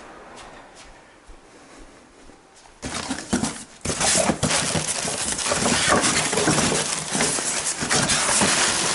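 Plastic bubble wrap and styrofoam packing rustling and crackling as a hand digs through a cardboard box. It starts about three seconds in with a few scrapes and turns into a steady crackle about a second later.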